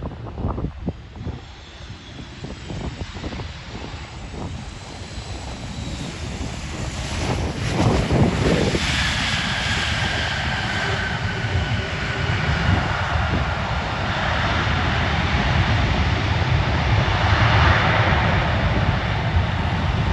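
Aircraft engines running, growing steadily louder as the plane draws near, with a high whine that slowly falls in pitch.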